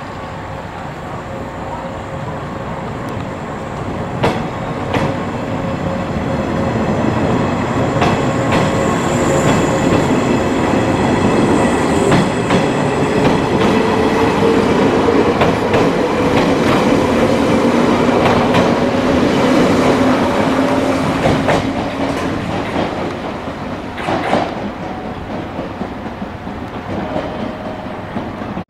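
JR 381 series electric limited express train moving past along the platform: wheels clicking over rail joints under a steady rumble, with a motor whine rising slowly in pitch as it gathers speed.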